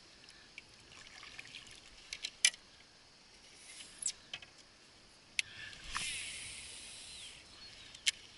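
Sharp clicks and knocks of a fishing rod and reel being handled on a plastic kayak. About six seconds in comes a hissing whir lasting about a second and a half.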